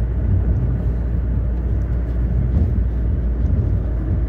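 Steady low rumble of a vehicle engine running, with no clear changes.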